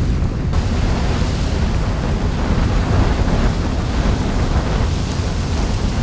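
Added sound effect of a volcanic eruption: a steady deep rumble under a rushing noise, with a higher hiss joining about half a second in.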